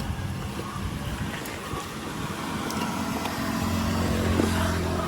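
A motor vehicle's engine running, a low steady hum that grows louder near the end, over outdoor background noise.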